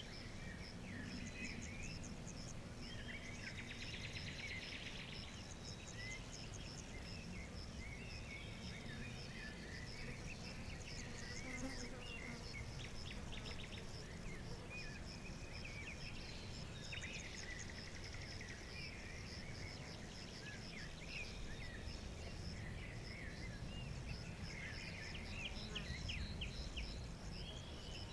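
Forest ambience: many small birds chirping and trilling over a steady, fast-pulsing insect trill, with a low background rumble.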